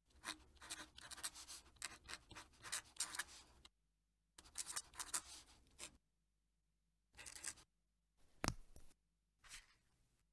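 Fountain pen nib scratching across paper while writing a cursive signature in quick strokes, in two longer runs and then a few short strokes, with one sharper tap near the end.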